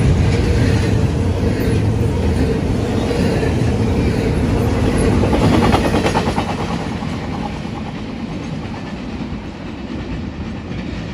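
Double-stack intermodal freight cars rolling past at speed: steady rumble and wheel clickety-clack. About six seconds in, a quick run of clicks comes as the last car's trucks go by, and the sound then fades as the train moves away.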